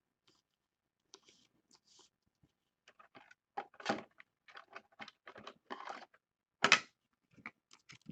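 Hands handling a thick trading card and a clear plastic card holder: a string of short scrapes, rustles and clicks as the card slides against the plastic. The loudest is one brief scrape about two-thirds of the way in.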